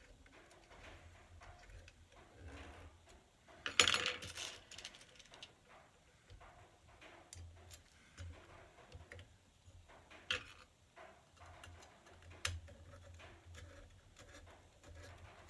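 Small metal parts and tools being handled during assembly: a loud clatter about four seconds in, then scattered light clicks and two sharper clicks later on.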